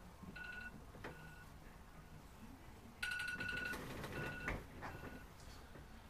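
Electronic alarm beeping in short bursts of a high tone, an alarm going off to wake a sleeper, with a pause of about a second and a half in the middle. A soft bump about four and a half seconds in.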